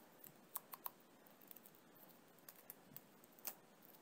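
Faint light clicks of a thin steel strip and small metal fitting being handled and bent by gloved hands: three quick clicks about half a second in, a few softer ticks, and another click near the end.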